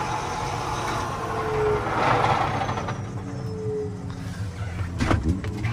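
John Deere 8335R tractor's diesel engine idling steadily, with a couple of sharp knocks about five seconds in.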